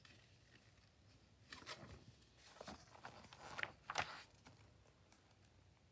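Paper rustling and handling of a large picture book as a page is turned: a few short, soft rustles over about two and a half seconds, the loudest near the end.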